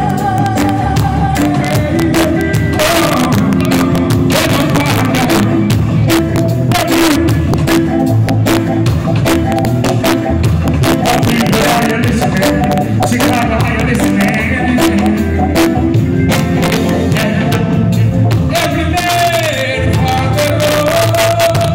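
Live reggae band playing loud and steady through the PA, with drum hits throughout and a male vocalist singing into a microphone, heard through a phone's microphone.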